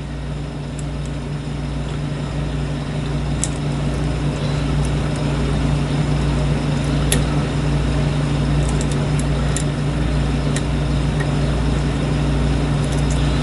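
A steady low mechanical hum, like a fan or motor, that slowly grows louder, with a few faint sharp clicks scattered through it.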